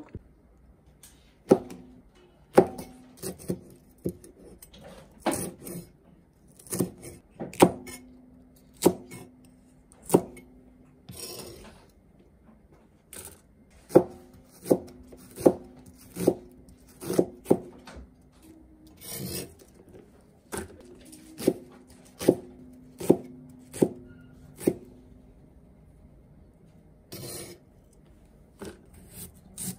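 Kitchen knife chopping food on a cutting board: unhurried single knocks, roughly one a second in short runs with pauses. Between runs there are a few brief scrapes, like pieces being pushed across the board.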